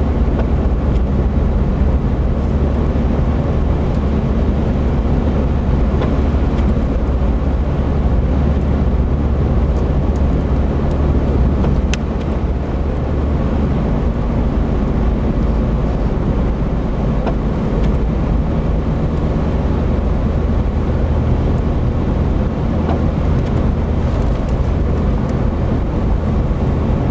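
Steady road noise inside a moving car: a continuous low engine and tyre rumble on wet pavement.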